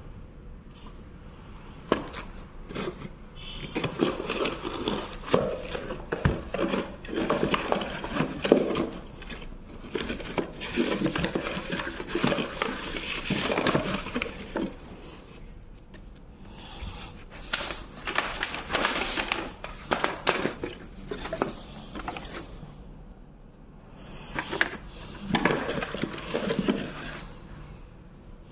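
Plastic courier mailer and cardboard packaging being handled and crumpled, in irregular bursts of rustling and crackling with a few sharp knocks, easing off twice along the way.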